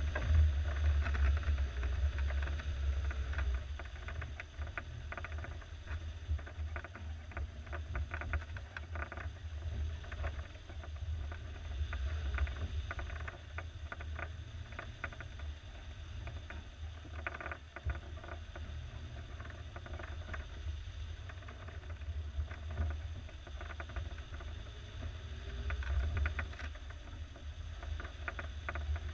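1987 Suzuki SJ413 LWB's 1.3-litre four-cylinder engine running as the jeep crawls over a rough, muddy trail. A low rumble, louder for the first few seconds, with frequent short rattles and knocks from the body and wheels on the uneven ground.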